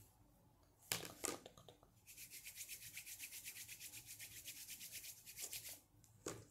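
Bare palms rubbed briskly together, a fast even rasping of about ten strokes a second, as an ASMR trigger. It follows a couple of handling knocks about a second in and ends with a short knock near the end.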